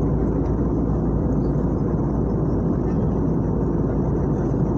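Steady, even roar of an airliner's engines and airflow heard from inside the passenger cabin, mostly deep rumble with little high hiss, during the descent.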